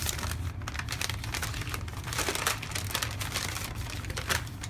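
Paper wrapping being crinkled and pulled off an item by hand, a dense run of crackles that thickens in the second half and stops near the end.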